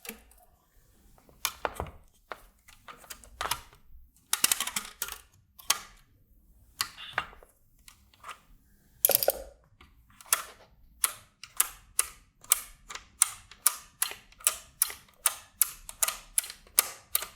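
Front-panel toggle switches on an IMSAI 8080 replica kit being flicked: scattered sharp clicks at first, then a steady run of clicks about two a second over the last seven seconds or so.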